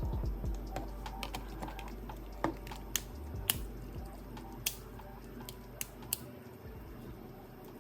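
Scattered sharp clicks and taps of a smartphone and its small parts being handled during repair, about six of them spread over a few seconds.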